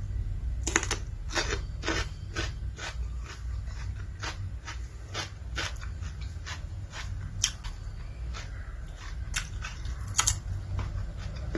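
Close-up crunchy chewing and biting of food, about two or three crunches a second, thinning out to scattered crunches after about seven seconds, over a low steady hum.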